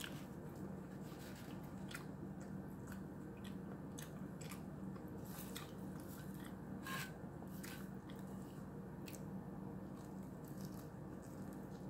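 Close-up eating sounds: a woman biting and chewing a piece of banana bread, with scattered short mouth clicks over a low steady hum.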